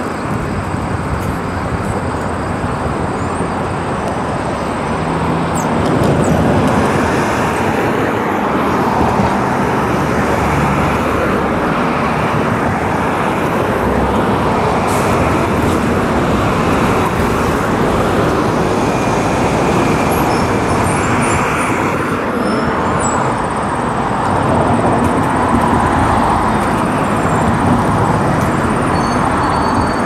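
Steady road traffic noise, a continuous rush of passing vehicles that gets louder about six seconds in.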